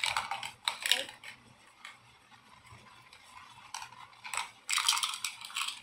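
Small plastic toy lockers clicking and clattering as they are handled and stacked: a few clicks about a second in, a pause, then a quick run of clicks near the end.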